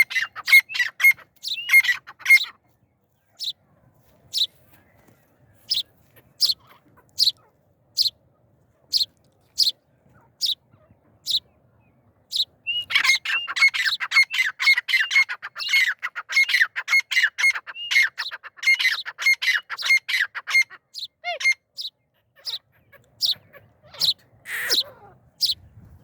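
Birds calling: short sharp high chirps repeated about once a second, with two long spells of rapid chattering, near the start and again through the middle.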